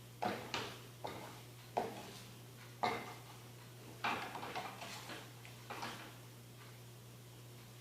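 A cooking utensil knocking and scraping against a pan about seven times at irregular intervals, as eggs are stirred and pushed around while they cook, over a steady low hum.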